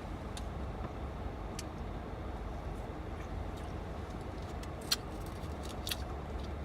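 Steady low hum of a car idling, heard from inside the cabin, with a couple of small clicks about five and six seconds in.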